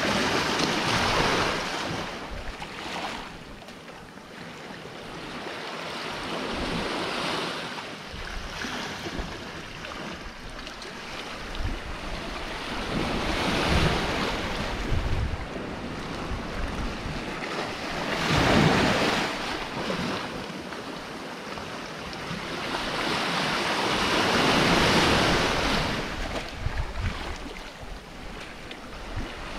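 Sea waves breaking and washing around rocks, swelling and falling away about every six seconds, with wind buffeting the microphone.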